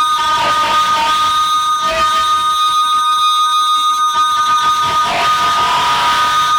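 No-input mixer feedback: several steady, shrill feedback tones held at once, with noisy crackling and shifting squeals over them.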